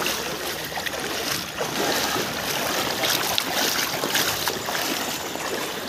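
Floodwater sloshing and splashing across a flooded road, with wind buffeting the microphone.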